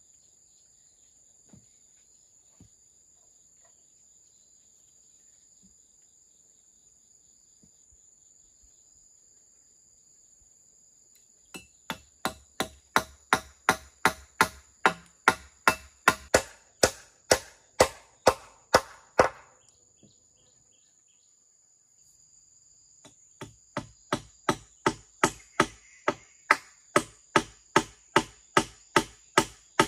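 Hammer blows on a wooden post-and-crossbeam joint, about three a second, in a run of some eight seconds, then after a short pause a second run near the end. Before the hammering, insects drone steadily at a high pitch.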